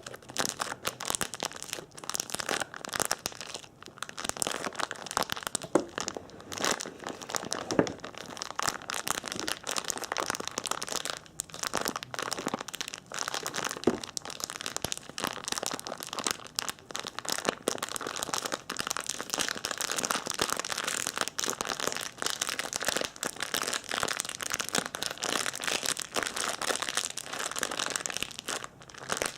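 Continuous close-miked crinkling and crackling of something being crumpled and handled, dense with tiny clicks, played as an ASMR trigger.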